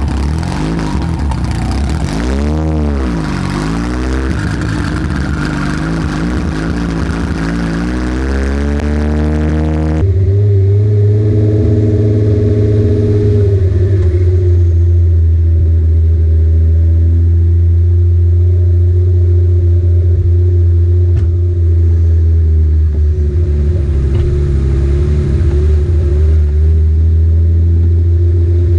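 Kia Stinger 3.3-litre twin-turbo V6 engine in the DeLorean build, revved up and down and then rising. About ten seconds in it gives way to a steady, deep running note.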